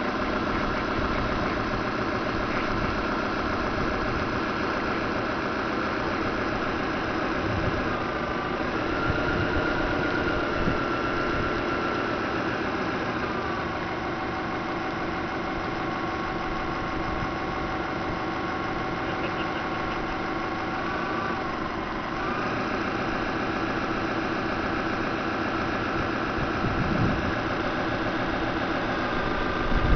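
Model harbour tug with Voith Schneider drive running: a steady mechanical hum with a whine that drops in pitch twice and rises again near two-thirds of the way through as the speed changes.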